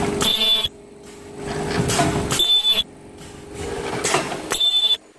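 Danrel DR-1542S 4200 W ultrasonic scourer-pad welding and cutting machine running automatically: three short, loud shrill bursts about two seconds apart as the ultrasonic head welds and cuts each pad, with a steady machine hum between them.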